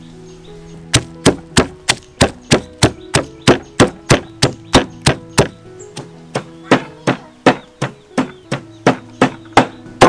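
Stone pestle pounding fresh lemongrass, turmeric and other curry-paste ingredients in a stone mortar: sharp, even thuds about three a second, starting about a second in, with a brief softer lull a little past the middle.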